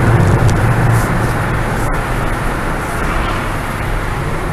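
Ford Fiesta ST driving at speed on a race track, its engine and road noise heard steadily from inside the cabin, easing off slightly after about a second.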